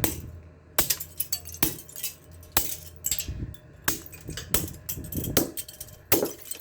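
Small shards of a vintage box fan's brittle plastic grill clinking and clattering, a string of irregular light clicks.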